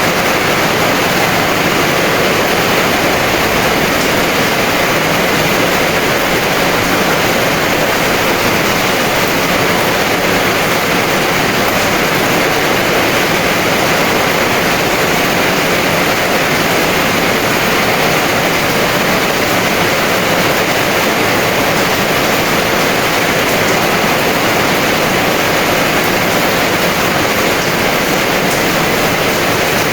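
Heavy rain falling in a steady, even downpour, loud and unbroken.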